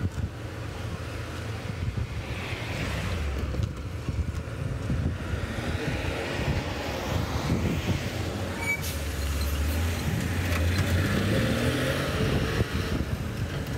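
Low rumble of road traffic with wind buffeting the microphone; a vehicle's engine note rises in pitch about ten seconds in.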